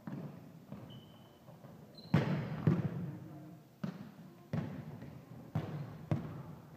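Volleyballs being struck and bouncing on a hardwood gym floor: a series of sharp smacks at irregular intervals, about seven in all, each echoing through the hall.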